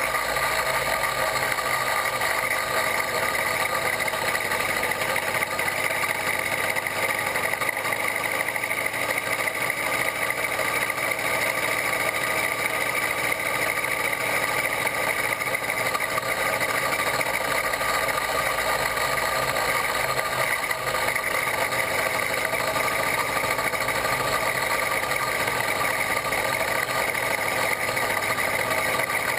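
Small 66/80cc Chinese two-stroke bicycle engine kit running steadily under way, its pitch holding even with no rises or drops.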